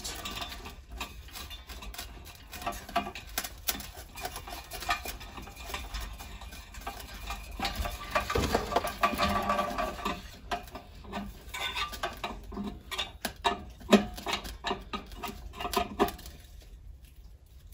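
Irregular small clicks, taps and scraping of metal parts being handled as a patio heater thermocouple's fitting is screwed back into the gas valve by hand, busiest about halfway through and quieter near the end.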